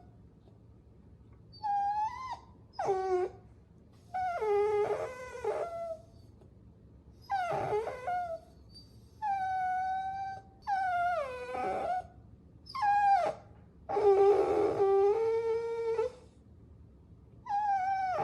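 Puppy whining: a run of about nine high-pitched whimpering cries, several dropping in pitch as they go, with short pauses between them.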